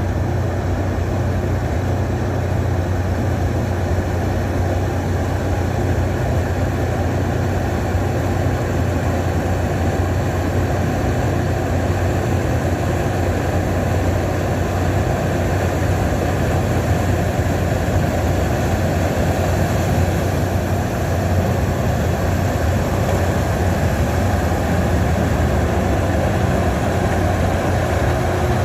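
Case IH 2366 combine harvester running steadily, a deep, even engine and machinery drone that holds the same level throughout.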